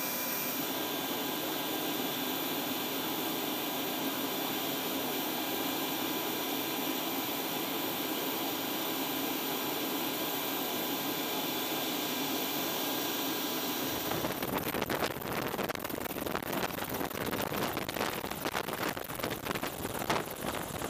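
AH-64 Apache helicopter: first a steady turbine whine with several high, even tones while it sits on the ground. About two-thirds of the way through, this gives way to the uneven, rapid chopping of its rotor as it flies overhead.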